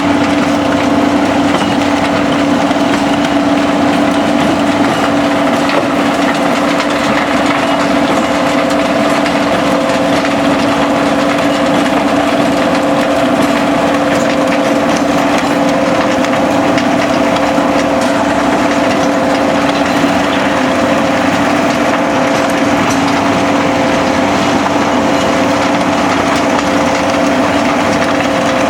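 SBM mobile impact crusher running steadily while crushing concrete: a constant machine drone with a steady hum, under a continuous crackle and rattle of rubble.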